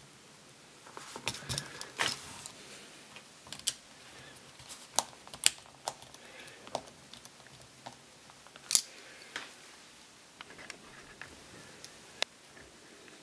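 Scattered small clicks and taps of a wall socket and its wires being handled as the earth, neutral and live conductors are fastened into its terminals, with the sharpest clicks about five and a half and nine seconds in.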